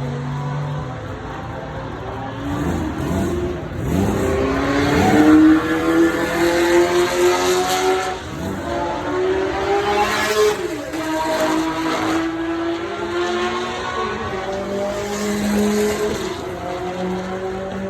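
Supercar engines accelerating hard, the pitch climbing repeatedly as they rev up through the gears, with cars sweeping past.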